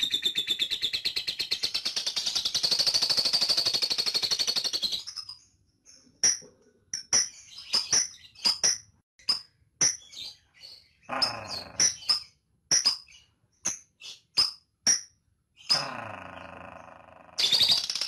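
Fischer's lovebird calling. For about five seconds it gives a long, rapid chattering trill (ngekek). This breaks into a string of short, sharp single chirps (ngetik) at nearly two a second, and the long trill starts again just before the end.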